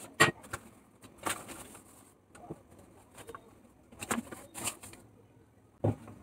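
Faint scattered rustles and soft knocks, a few short ones spread over several seconds, as all-purpose flour is poured from its packet into a large mixing bowl.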